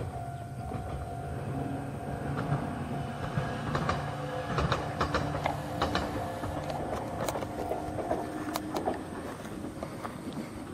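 Red Meitetsu 6000-series electric train running by at a distance, its motors humming in steady tones that step in pitch, with a run of sharp clicks through the middle.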